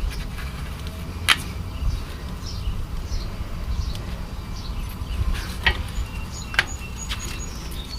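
A few sharp metallic clicks and knocks of brake parts and tools being handled, over a steady low rumble. A quick row of short high chirps comes in near the end.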